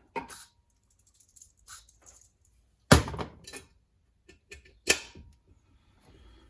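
Metal engine parts knocked and set down on a bench: three sharp knocks, the loudest about three seconds in, with a brief metallic ring after the first and last and small clicks in between.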